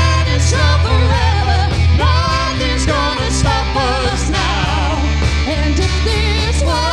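A woman singing lead with a live band: a wavering, held vocal melody over a strong bass line and steady drum beat.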